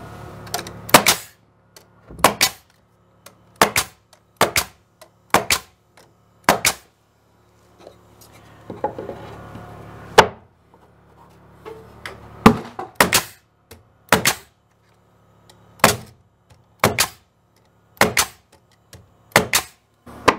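Nail gun driving nails through short wooden filler strips into wall studs: about fifteen sharp shots, many heard as a quick double crack, roughly one a second, with a pause of a few seconds in the middle.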